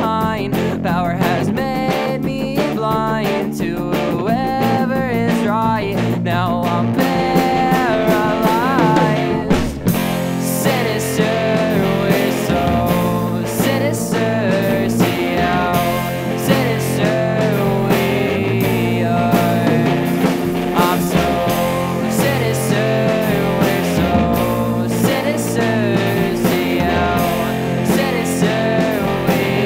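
An amateur band's original rock song, led by guitar. The band gets noticeably fuller about ten seconds in.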